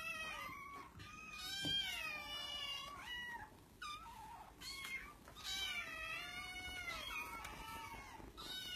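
Several hungry kittens meowing over one another: high-pitched calls that slide up and down, with short breaks around three to five seconds in.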